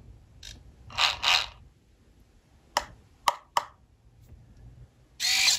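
Three quick fingertip taps on the plywood box, a secret-knock pattern, then near the end the small hobby servo inside whirs briefly as it swings the latch. Two soft rubbing noises come about a second in.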